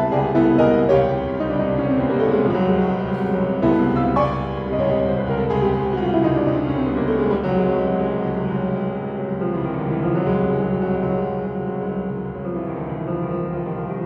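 Solo grand piano playing a loud, dense passage of many notes sounding together over a sustained low rumble, with a falling run of notes from about four seconds in.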